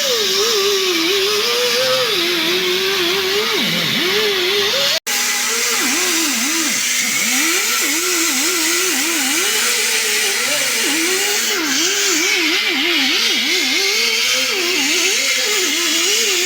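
Power tool motor, such as a drill or grinder with a wire brush, scrubbing clean a van's rear hub parts; its pitch sags again and again as it is pressed against the work and picks back up, over a loud rasping hiss. The sound cuts out briefly about five seconds in.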